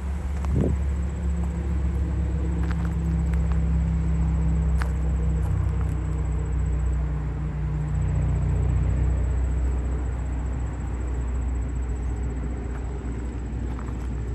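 Steady low rumble with a deep hum, and a few faint clicks over it.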